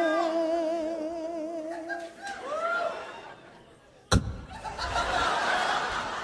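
The last sung note of a comic song, held with vibrato, fades out over the first two seconds. A single sharp click about four seconds in is followed by a short snickering laugh.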